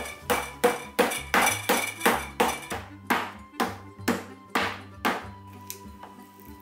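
Wooden meat mallet pounding a thin veal cutlet flat on a wooden cutting board: about fifteen blows, around three a second at first, then slowing and stopping about five seconds in.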